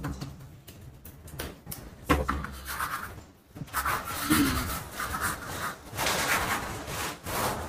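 Irregular rubbing and rustling from close handling, with a few soft knocks.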